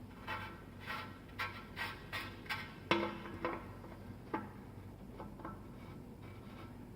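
Light metallic clicks and taps from a bicycle bottom bracket and its parts being handled against the frame, a quick run of about two to three clicks a second that thins out to a few scattered ticks after about three and a half seconds.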